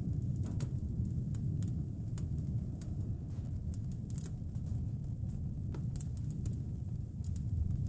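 Wood fire crackling in a fireplace: irregular sharp pops and snaps, bunched near the start and again about six seconds in, over a steady low rumble.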